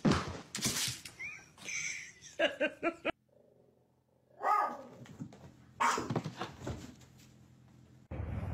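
Short vocal calls from pets, in several brief bursts cut between separate home clips.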